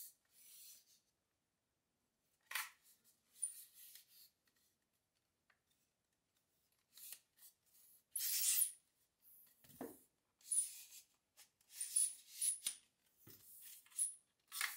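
Telescoping sections of an Insta360 3-metre invisible selfie stick being pulled out one after another: repeated short sliding hisses, a few brief high squeaks in the second half, and a couple of low knocks.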